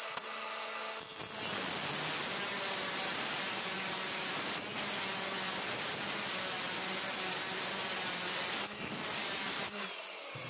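Angle grinder with a cut-off disc running, then cutting through a round metal pipe for about eight seconds, the cut grinding steadily and throwing sparks. Near the end the disc breaks through and the motor runs free again.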